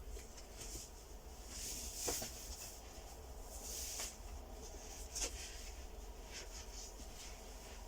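Quiet room tone: a low steady hum with faint rustling swells and soft clicks, about two and five seconds in.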